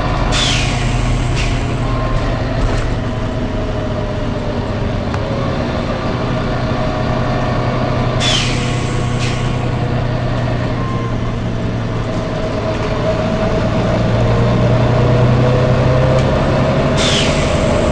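Volvo B9TL double-decker bus with its diesel engine running in a steady hum, and short sharp 'tsh' air hisses from its air system. The hisses come in pairs, about a second apart, near the start and again about halfway through, with a single one near the end.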